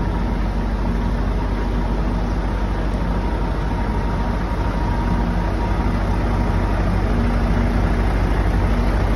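Volvo FH truck's diesel engine running steadily at low revs as the tractor unit pulls its loaded tipper trailers slowly forward.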